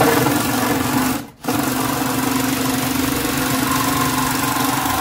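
Cordless drill driving a reciprocating-saw attachment, its blade sawing through a wooden board: a loud, steady buzzing run that stops briefly about a second in, then starts again and keeps cutting.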